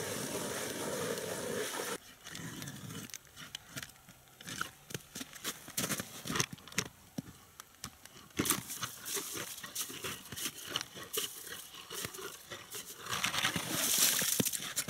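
Hand ice auger cutting into lake ice: a crunching, crackling rasp of the blades shaving ice, turn by turn. Near the end a louder rasp as the auger is pulled up and the ice chips spill out.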